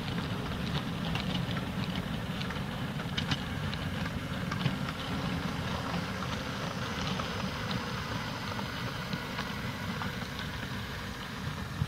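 Model railway goods train rolling past: the wagons' wheels rumble steadily on the track with frequent irregular clicks.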